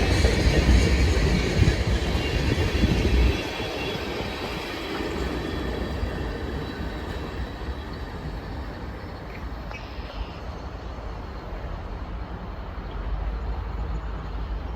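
CN freight train's cars rolling past on the rails, a loud low rumble with steel-wheel noise. About three seconds in it drops off sharply, leaving a fainter rumble that slowly fades away.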